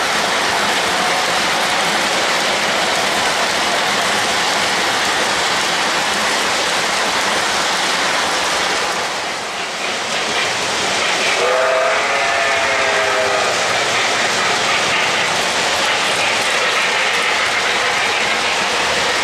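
O-gauge model trains running on three-rail track, a steady rumbling hiss of wheels and motors that dips briefly about halfway through. A little past halfway, a model locomotive sounds a multi-note horn for about two seconds.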